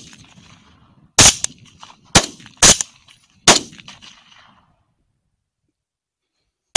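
Volley of rifle shots from several hunters firing on wild hogs: four sharp shots within about two and a half seconds, each ringing out afterwards, then one more at the very end.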